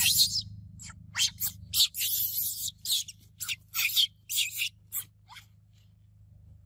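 Baby macaque scrabbling through loose gravel with its hands: a quick run of short scrapes and crunches of small stones, stopping about five seconds in.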